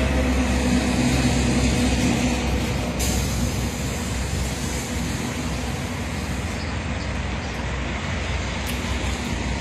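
Steady highway traffic noise, with the diesel engine of a large coach bus running close by.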